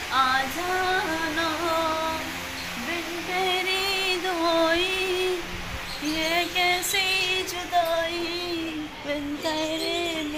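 A woman's voice singing a melody in phrases of long, wavering held notes.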